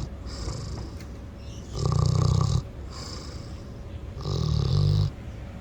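Mini pig snoring in its sleep, with a snore like a middle-aged man's. Two loud, fluttering snores come about two and a half seconds apart, with softer breaths between.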